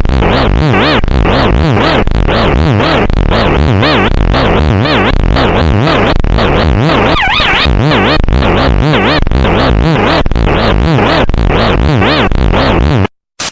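Fan-made Emergency Alert System alarm: loud, harsh electronic tones warbling rapidly up and down several times a second. It cuts off suddenly near the end, followed by one short blip.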